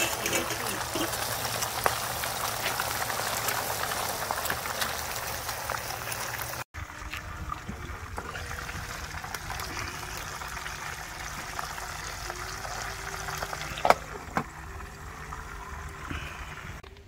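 Scup frying in hot oil in a pot on a portable gas stove: a steady sizzle full of fine crackles. After a cut it goes on quieter with a glass lid over the pot, with a sharp knock near the end.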